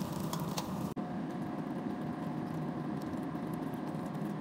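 Omelette sizzling in oil in a wok, with a spatula clicking against the pan. The sizzling cuts off suddenly about a second in, and a steady even hum with a faint steady tone follows.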